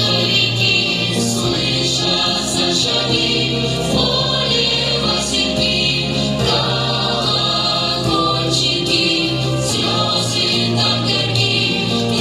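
A vocal group singing a song together to instrumental accompaniment with a steady bass line and light percussion.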